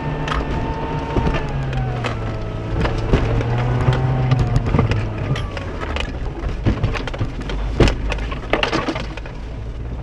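A Mercedes car's engine pulls and then eases off, its pitch falling as the revs drop from about 4,500 to 1,700 rpm while it crawls through deep mud ruts. Repeated sharp knocks and clatter come from the car being jolted over the ruts, the loudest about eight seconds in.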